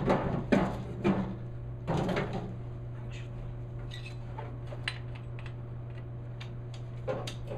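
Metal window regulator with new rollers being worked into a truck door, clattering and knocking against the door several times in the first two seconds and again near the end, with lighter clicks in between.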